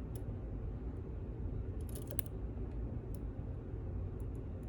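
Faint ticks of a steel lock pick working the pins inside a pin-in-pin lock, a short cluster of them about two seconds in, over a low steady rumble.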